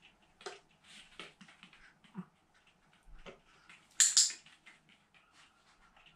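Light rustling and tapping as a Pomeranian fetches a tissue and hands it over, with a sharp double click about four seconds in, the loudest sound.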